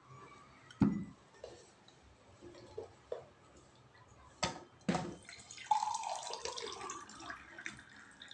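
A drinking glass and a water pitcher knock on the table as they are picked up and handled, with one heavier knock about a second in and two sharp clicks near the middle. From about six seconds in, water is poured from the pitcher into the glass with a steady splashing trickle.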